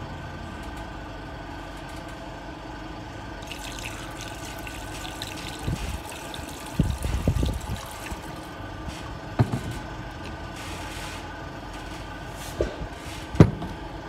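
Water poured from a can through a metal funnel into a fire extinguisher cylinder, trickling and splashing for several seconds. Clunks from the can, funnel and cylinder being handled, the sharpest near the end, over a steady mechanical hum.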